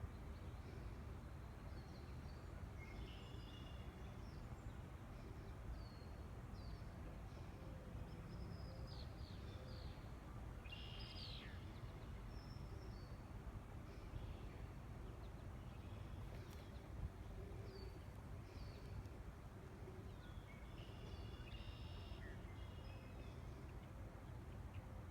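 Outdoor ambience: small birds chirping and calling on and off over a steady low rumble.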